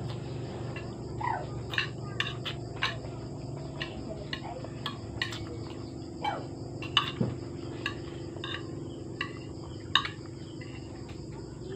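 Spoons clinking and scraping on ceramic plates and bowls in scattered sharp clicks as people eat, over a steady chorus of crickets and a low hum.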